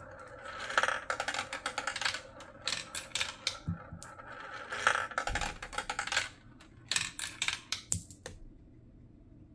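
Glass marbles rattling and clacking through a clear plastic marble run, a quick clatter of small hard clicks that comes in bursts and stops about eight seconds in.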